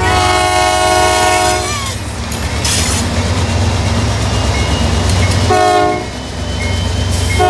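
Horn of an approaching Norfolk Southern GE Dash 9 diesel locomotive: a long multi-tone chord that sags in pitch as it ends, then a short blast about five and a half seconds in, with another starting at the very end. A steady low rumble of the locomotives runs underneath.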